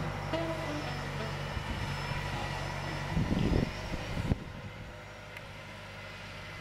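Tractor engine running steadily as it drives away, dropping off sharply about four seconds in.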